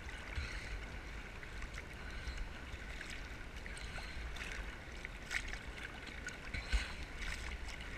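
Choppy sea water sloshing and splashing against a camera held at the surface: a steady, muffled low rumble with scattered small splashes, the sharpest one a little after three-quarters of the way through.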